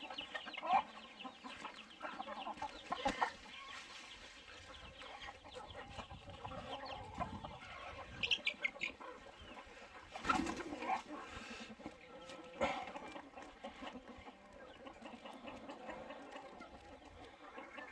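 A flock of young chickens clucking, with short calls overlapping throughout and a few louder calls standing out.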